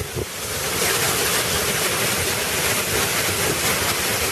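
Torrential tropical rain pouring down in a steady, dense hiss.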